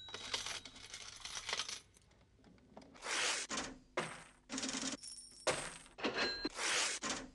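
Jingling coins and cash-register clatter, faint at first. From about three seconds in they come as loud bursts every half second to a second, in an uneven repeating rhythm like a looped sound effect.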